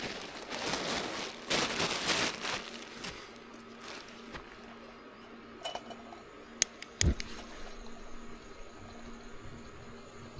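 Rustling and handling noises from camping gear, several bursts in the first couple of seconds, then two sharp clicks about half a second apart.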